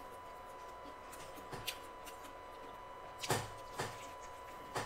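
Crunching bites and chewing of a crispy Popeyes fried chicken sandwich: a few short, sharp crunches spaced a second or so apart, the loudest about three seconds in.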